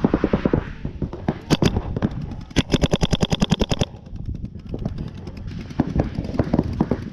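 Paintball marker firing rapid strings of shots, about ten a second, with the longest and loudest burst of more than a dozen shots in the middle and shorter scattered shots around it.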